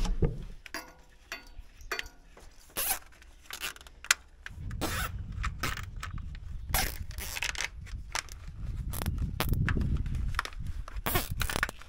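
Hydraulic hoses and metal couplers being handled and connected at a tractor hitch: scattered clicks, knocks and scrapes. A low, uneven rumble joins them about four and a half seconds in.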